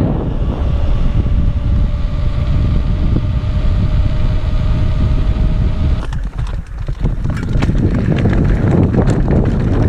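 Mountain bike descending a rough, rocky trail at speed: heavy wind buffeting on the microphone over the bike's rattle, with a faint steady whine in the first half. About six seconds in it eases briefly, then sharp clatter of stones and bike parts follows.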